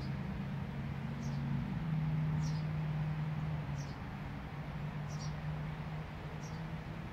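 Motorized display turntable rotating: a steady low hum with a short, high squeak repeating about once a second.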